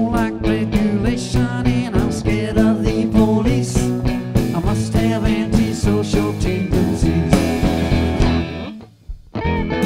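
Rock band playing live: electric guitars, bass guitar and drums. Near the end the music drops out for under a second, then the band comes back in.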